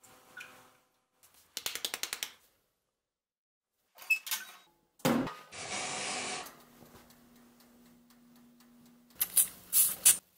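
A quick run of about eight clicks, then a knock and a brief hiss, then a toaster oven humming steadily while it heats the knife blade for tempering. Near the end come two or three short loud sprays of foam from an aerosol can onto the steel blade.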